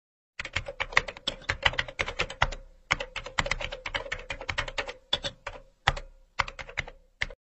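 Keyboard typing sound effect: rapid key clicks in runs with a few short pauses, over a faint steady hum, stopping abruptly near the end.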